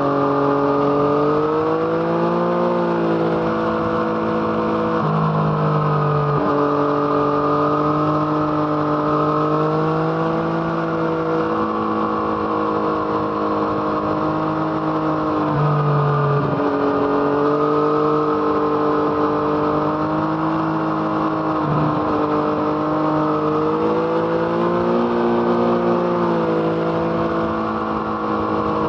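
Yamaha MT-09's three-cylinder engine through an Arrow Thunder exhaust, heard from the motorcycle while riding: the engine note rises and falls with the throttle and breaks sharply a few times as the revs change.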